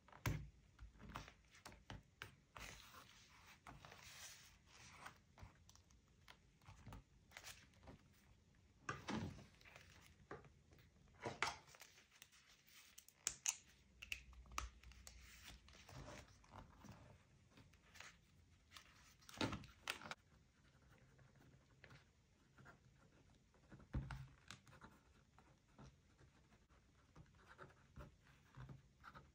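Paper and stationery being handled for a scrapbook journal: irregular soft rustles, scrapes and light taps, with a handful of sharper clicks and knocks spread through.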